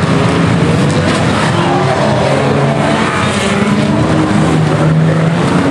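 Several banger racing cars' engines running together as the pack races past, their engine notes rising and falling as the drivers rev and lift.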